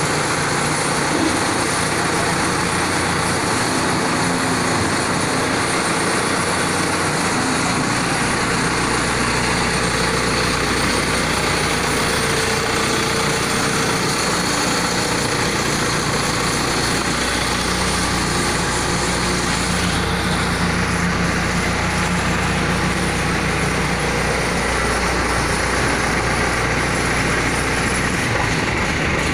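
Maxxter crawler combine harvester's engine running steadily, with a deeper low hum joining about eight seconds in.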